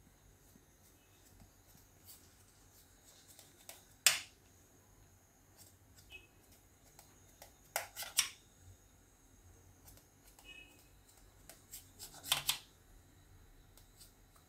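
Kitchen knife scoring crumbly gram-flour dough on a stainless steel plate, the blade clicking and scraping against the steel in short sharp strokes: a loud click about four seconds in, a quick run of strokes around eight seconds, and another near the end.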